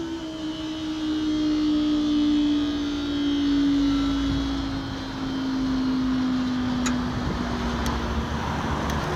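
Level crossing barrier mechanism running as the boom lifts: a steady whine sliding slowly lower in pitch, over a low rumble of road traffic. A few faint ticks come near the end.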